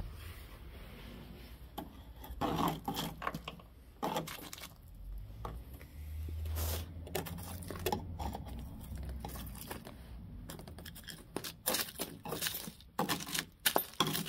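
A screwdriver tip prodding and scraping at the rusted, crumbling floor pan of a 1987 Opel Kadett Caravan, loosening flaking rust and dirt, in irregular scrapes and sharp clicks that come thickest near the end.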